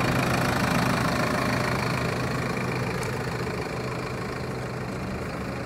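Bus engine idling with a steady low hum that fades slightly over the few seconds.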